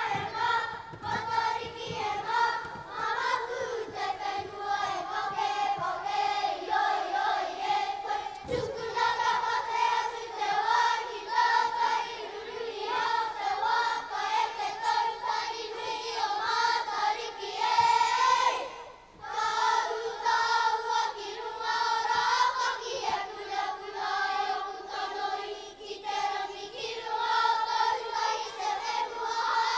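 A group of children singing a Māori waiata together in unison. There is one short pause about two-thirds of the way through.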